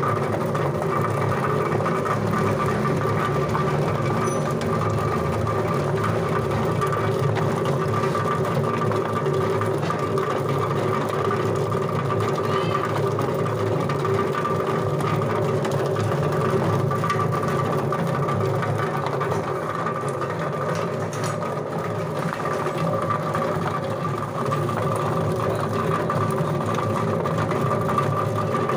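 Durian spinner extractor running steadily, its stainless-steel drum spinning the durian seeds to strip off the flesh: an even motor hum with a steady whine over it.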